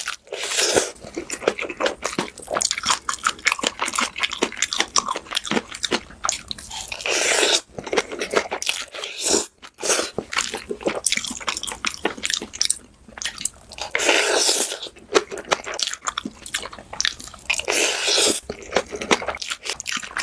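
A person chewing and crunching food close to the microphone: rapid crackly mouth and food noises, with a few longer noisy stretches.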